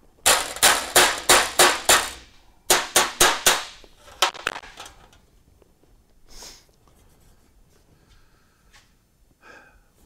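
A hand hammer striking a sheet-metal strip against the corner of a steel welding table, forming a curve into it. Two runs of quick, ringing blows, about three to four a second, are followed by a few lighter taps.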